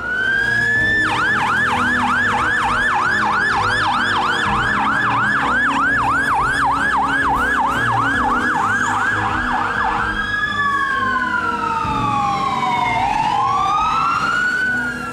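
Fire truck siren: a rising wail for about a second, then a fast yelp of about three sweeps a second, switching about ten seconds in to a slow wail that falls and then rises again.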